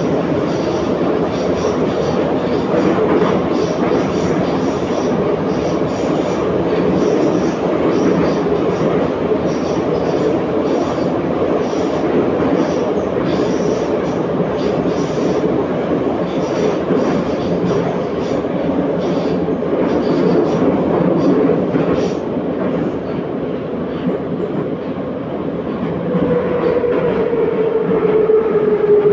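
Inside an 81-714.5 metro car running between stations: a steady rumble of wheels on the rails, with some clickety-clack. Near the end the electric drive's whine comes up and falls slightly in pitch.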